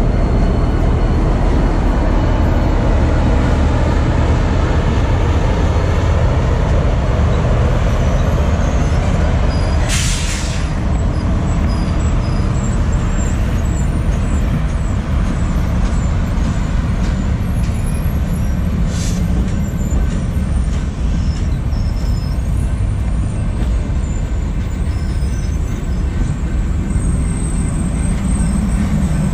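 Union Pacific office car special passing close by: a loud, steady rumble of passenger-car wheels on the rails, with a short sharp hiss about ten seconds in and a fainter one about two-thirds of the way through.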